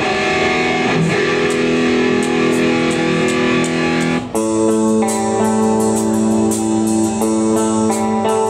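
Live rock band playing through a PA: electric guitars and bass holding long chords. About four seconds in, the chord breaks off briefly, then a new chord starts with steadier drum and cymbal hits.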